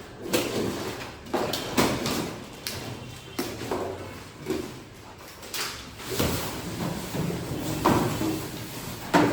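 Irregular knocks and bangs, about ten sharp ones spread unevenly over several seconds, over a background clatter.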